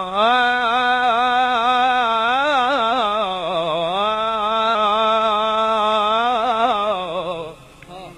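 A man singing one long melismatic phrase of an Arabic song on a held vowel, the pitch wavering through quick ornaments; it fades away about seven and a half seconds in.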